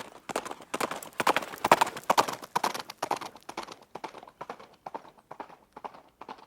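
Hooves of a running horse, a rapid series of clip-clops. They grow loudest about two seconds in, then fade as the horse draws away.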